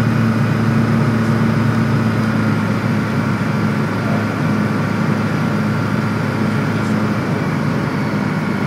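Light aircraft's piston engine and propeller droning steadily inside the cockpit on short final approach, dropping slightly in level about three seconds in.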